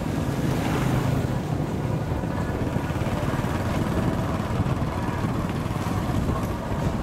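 Small motorbike running steadily under way on a rough dirt road, a continuous low engine and road rumble with wind on the microphone.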